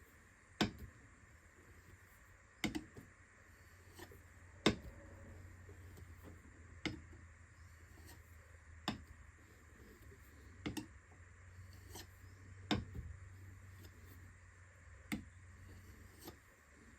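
Steel chisel being honed on a 10,000-grit natural jade waterstone, giving a sharp click or tap every one to two seconds over a faint low hum.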